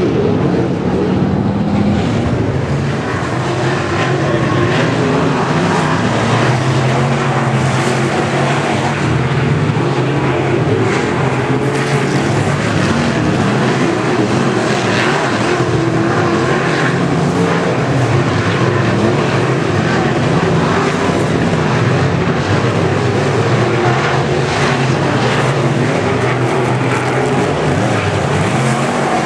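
Dirt late model race cars with steel-block V8 engines running on the track: loud, continuous engine noise whose pitch keeps rising and falling.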